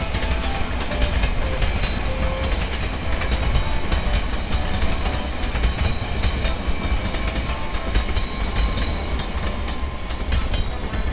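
Train sound effect: a moving train's steady rumble with wheels clacking over the rail joints.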